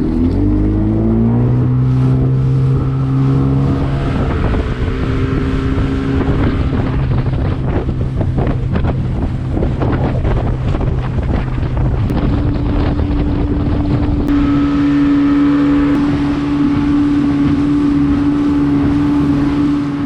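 Small motorboat's 40-horsepower engine revving up at the start, then running steadily at speed, with wind on the microphone. Its pitch changes to a new steady note about twelve seconds in.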